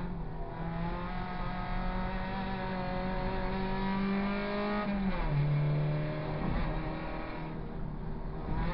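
Race car engine heard from inside the cabin under hard driving. It holds high revs that climb slowly, then drops sharply in pitch about five seconds in and runs on lower.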